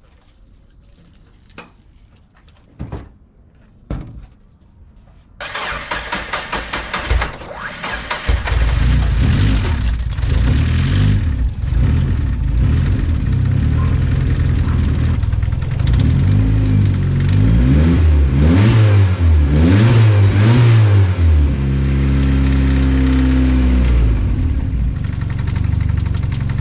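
Mazda Miata four-cylinder engine cold-started on a freshly replaced ignition coil pack: a few light clicks, then the starter cranks for about three seconds before the engine catches. It is revved up and down a few times, then settles to a steady idle, running as it does because it has no idle air control valve until it warms up.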